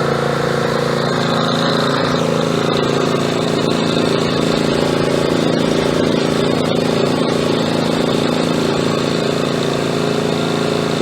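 Hyundai HY3200SEi 3200-watt petrol inverter generator running steadily after a key start.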